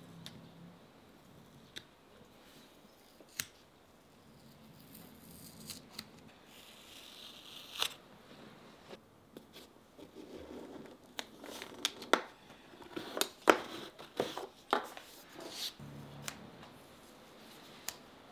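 Masking tape peeled off a shoe last and pressed flat onto paper: scattered crackles and sharp clicks, coming thickest and loudest in the second half.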